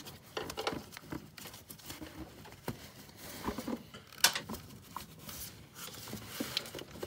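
Hand-turning of the loosened oil filter adapter bolt on a Jeep 4.0 engine: scattered small clicks, scrapes and rustles of metal parts and gloved fingers, with one sharper click about four seconds in.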